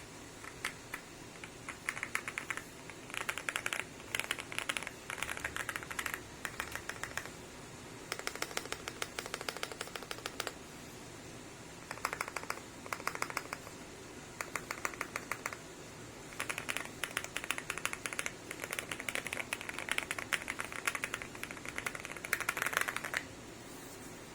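Typing on a Weikav Stars 75 mechanical keyboard with KTT Rouge linear switches and thick PBT Cherry-profile keycaps in an aluminium case: fast runs of keystrokes in bursts of a few seconds, with short pauses between them.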